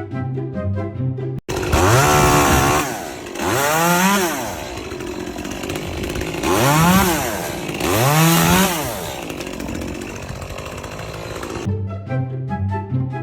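A small engine-driven tool revving up and back down four times, with a loud rasping noise between revs. Background music plays briefly before it starts and again after it cuts off near the end.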